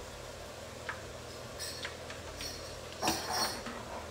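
Metal slotted spatula clinking against a frying pan while potato pieces are put into shallow oil: a few light clinks, then a louder cluster about three seconds in, over a low steady hum.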